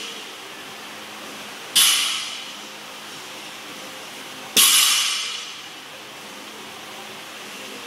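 A 125 lb barbell loaded with iron plates is set down on a wooden lifting platform between sumo deadlift reps. Each touchdown is a sharp clank that rings out for about a second. It comes twice, about three seconds apart, and a previous clank is still fading at the start.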